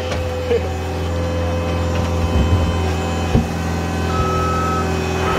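Cat 299D2 compact track loader's diesel engine running steadily under load as its bucket digs at a buried oil tank, with a few short clunks. Its backup alarm begins beeping near the end.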